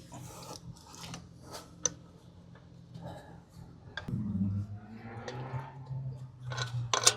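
Lug bolts being threaded by hand through a wheel into the hub: scattered metal clicks and scrapes, with a sharp click near the end. A low hum comes in about four seconds in.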